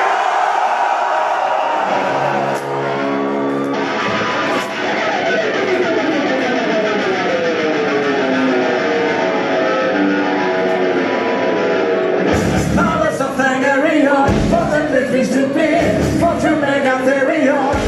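Live symphonic metal band playing: for about twelve seconds a melody with no drums or bass, then drums and bass come in with the full band and singing.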